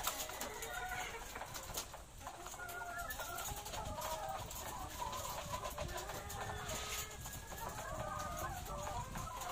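A house of caged ready-to-lay hens clucking, with many short, overlapping calls and a few light knocks among them.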